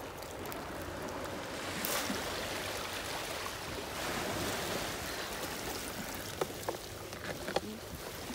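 Seawater washing against a harbour wall, a steady rushing wash, with a few light knocks near the end.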